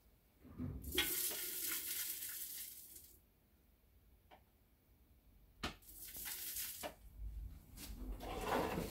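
Soy wax flakes being poured from a pitcher into a steel pouring pot on a scale: a dry rustling hiss in a few spurts. A short, sharp knock comes about halfway through.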